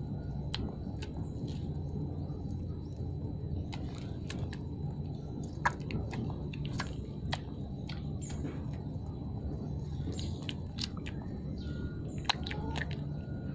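Puppies suckling at their mother's teats: scattered wet smacking and sucking clicks, with two sharper clicks about six seconds in and near the end, over a steady low background hum.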